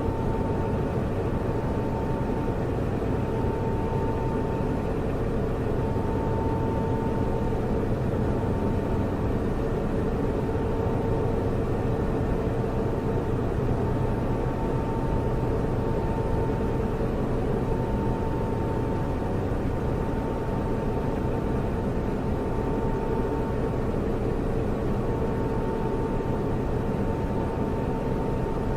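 Computer servers and their cooling fans running steadily: an even whirring hiss with low, constant hum tones and a faint higher tone that comes and goes.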